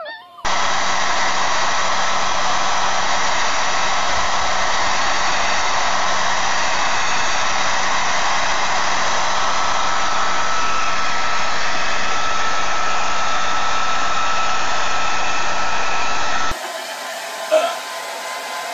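Hand-held hair dryer blowing steadily, with a faint steady whine in the rush of air. Near the end it gives way abruptly to a quieter hair dryer blowing on a dog, with one brief louder sound.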